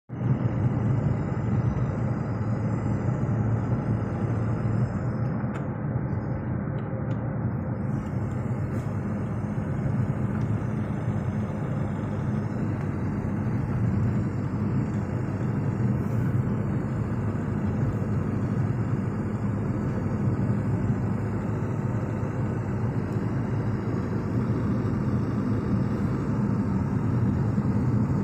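A steady low rumble, with no distinct chirps standing out.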